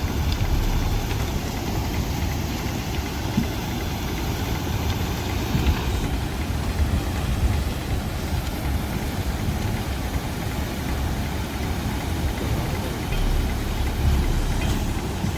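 Flooding river pushing a mass of driftwood and debris: a steady low rumble with scattered knocks of wood.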